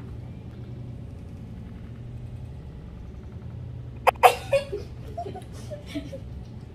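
A steady low hum with a person's short vocal noises while eating. About four seconds in there are a few sharp, loud sounds, then several brief muffled hums.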